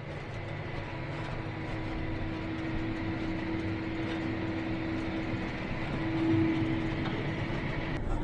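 Tractor running steadily under load while pulling a vertical tillage implement, a low engine rumble with a steady tone over it that swells briefly about six seconds in.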